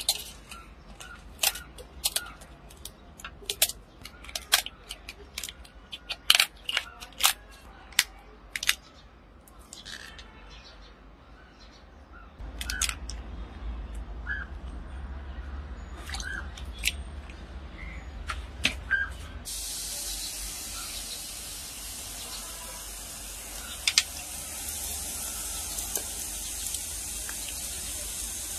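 Rock lobster shells being cut and cracked with a knife and scissors: sharp crunchy cracks and snips, loud and irregular for the first twelve seconds, fewer after. About twenty seconds in a steady high hiss sets in and continues.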